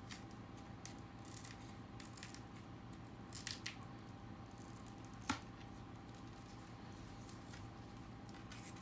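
Quiet handling on a workbench: faint rustles and small clicks over a steady electrical hum, with a brief scuffle about three and a half seconds in and one sharp click a little after five seconds.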